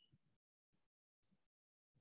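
Near silence: faint room hiss that cuts in and out, dropping to complete silence several times.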